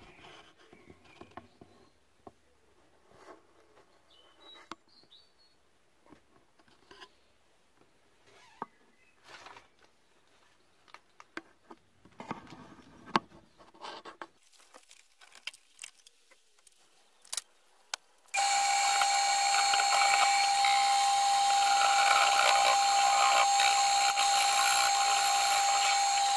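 Faint knocks and handling clatter, then about 18 seconds in an electric wood lathe is switched on and runs steadily with a whine, spinning a bowl blank.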